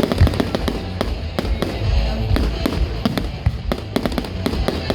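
Fireworks display: a rapid, continuous run of bangs and crackles over a low rumble.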